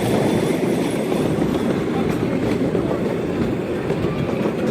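Steady rumble of a small miniature ride-on train running along its track, heard from on board, with a couple of faint clicks about two seconds in.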